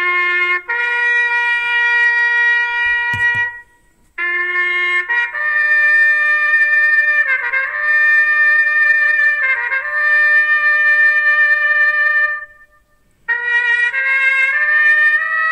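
Solo trumpet playing a slow call of long held notes, each phrase opening with a short lower note that rises into a long sustained one, with brief pauses between phrases about four seconds in and again near the end.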